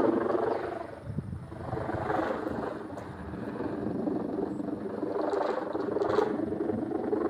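Humming drone from a giant pegon kite flying overhead. It is a steady pitched buzz made of many tones that fades about a second in and swells again several times.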